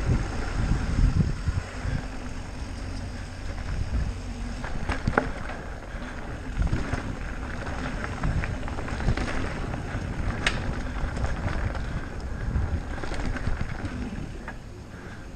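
Wind buffeting the microphone as an e-mountain bike rides along a dirt trail, with a steady rumble of tyres and uneven thumps from bumps, plus a few sharp clicks from the bike.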